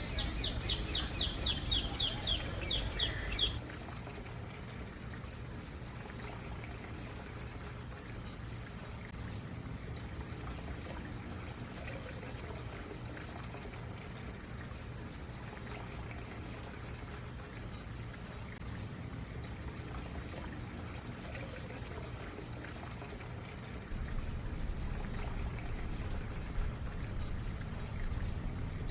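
Stream water trickling and pouring steadily. In the first few seconds a bird sings a quick trill of about a dozen high, evenly spaced notes, and a low rumble drops away about three and a half seconds in and returns near the end.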